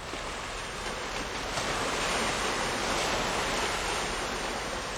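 Steady rushing noise of wind and river water at the water's edge, swelling a little about two seconds in and easing slightly near the end.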